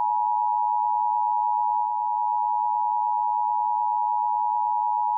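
Emergency Alert System attention signal: the steady two-tone (853 and 960 Hz) alert tone sounding loud and unbroken, announcing an EAS activation ahead of the spoken warning.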